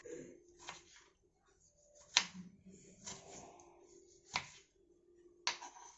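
Kitchen knife cutting onion and tomato on a wooden chopping board: a few sharp, irregularly spaced knocks as the blade hits the board.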